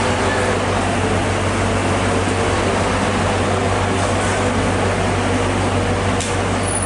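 Steady low mechanical hum under a continuous wash of background noise, with one short click about six seconds in.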